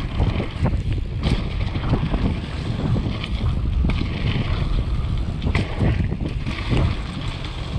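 Wind buffeting a mountain bike rider's camera microphone over the rumble of tyres rolling fast on a dirt trail, with occasional knocks and rattles from the downhill bike hitting bumps.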